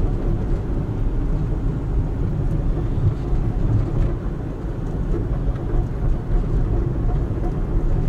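Honda Life JB5 kei car driving slowly, its engine and tyres heard from inside the cabin as a steady low rumble.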